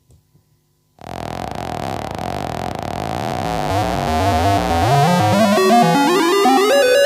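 Noise Engineering Sinc Iter Eurorack oscillator playing a fast sequence of quickly stepping synth notes over a noisy wash. It starts about a second in and grows steadily louder.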